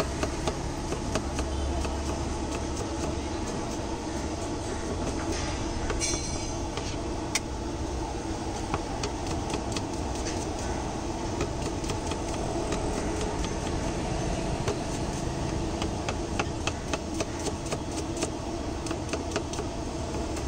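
Long kitchen knife rapidly chopping onions on a chopping block: a quick, uneven run of sharp knocks throughout, over a steady low rumble of background noise.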